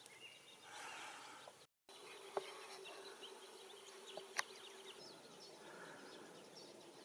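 Faint outdoor ambience: scattered distant songbird chirps, with a steady buzz from about two to five seconds in and a couple of light clicks. Just before two seconds in, the sound drops out to dead silence for a moment.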